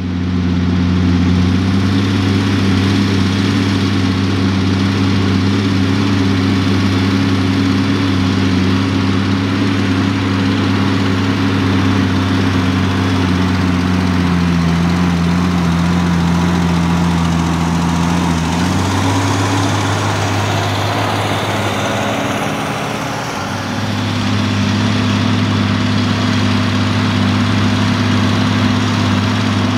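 New Holland TG285's six-cylinder Cummins diesel engine running steadily under heavy load, pulling a five-furrow plough. Its note drops somewhat about halfway through, shifts again, and briefly quietens a little after twenty seconds before settling back to a steady pull.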